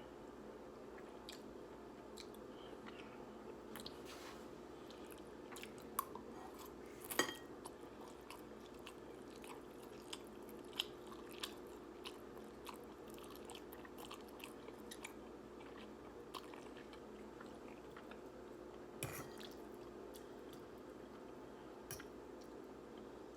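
A person chewing and eating instant ramen noodles close to the microphone: faint, scattered wet mouth clicks and smacks, the strongest about seven seconds in, over a steady low hum.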